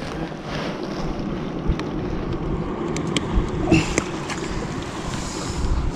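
Steady wind and surf noise, with jacket fabric brushing over the body-worn camera's microphone and a few light clicks and knocks between about two and four seconds in.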